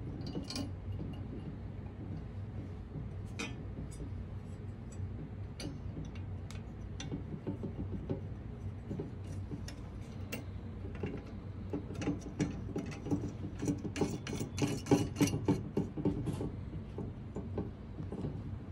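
Light clicks, taps and clinks of small hardware (lock washers, threaded knobs) and sheet-metal mount parts being handled and fitted together. The clicking gets busier past the middle, over a steady low hum.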